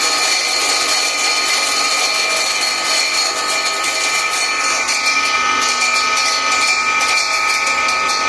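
Motor-driven corn grinding machine running steadily while milling maize, a constant high whine over dense grinding noise.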